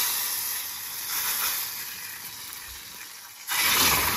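Hot tempering oil with chillies and spices (tadka) poured into sambar, hissing and sizzling loudly, then easing off. About three and a half seconds in it sizzles up loudly again.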